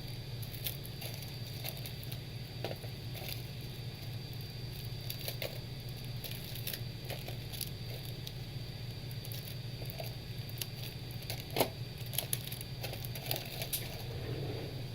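Scattered light clicks and rustles of small parts being handled at a repair bench, over a steady low hum and a faint steady high whine. One sharper click comes about eleven and a half seconds in.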